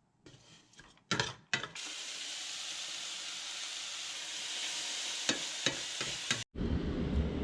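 Food frying in a pan: a steady sizzle with a few sharp pops, after a couple of knocks at the start. Near the end the sizzle cuts off abruptly and a low rumble takes over.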